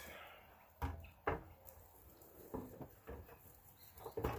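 A few light knocks and clicks of parts and tools being handled, the two sharpest about one and one and a half seconds in, after a brief hiss.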